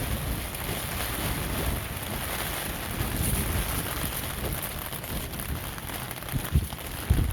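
Steady rain falling, with a low rumble beneath it and two sharp low thumps near the end.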